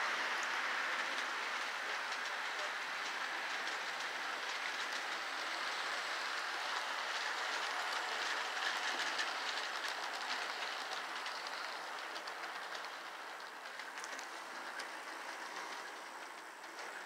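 Model train running around the track: a steady rolling whir of the locomotive and cars with faint clicking, growing quieter over the last few seconds.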